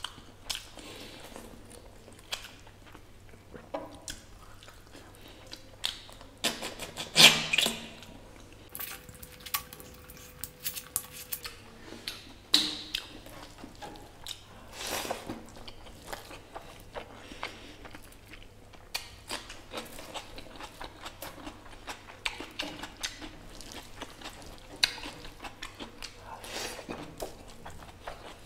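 Close-up eating sounds of mutton curry and rice eaten by hand: wet chewing, mouth smacks and squishing of curry-soaked rice and meat, as a run of short irregular clicks, loudest about seven seconds in.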